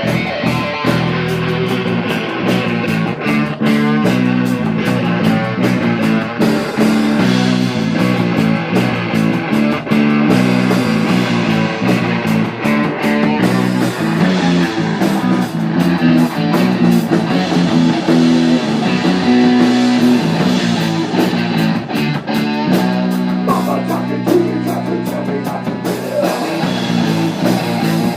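Rock music led by guitar, playing steadily with a driving beat.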